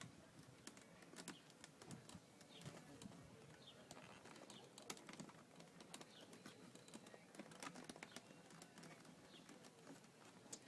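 Faint, scattered clicks and scrapes of a screwdriver pushing a plastic power-window switch out of its mounting in the door panel, near silent in between.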